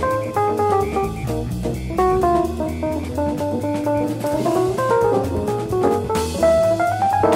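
Jazz recording: a fast run of single notes on guitar over a walking bass line and drum kit with steady cymbal strokes. A cymbal wash swells near the end.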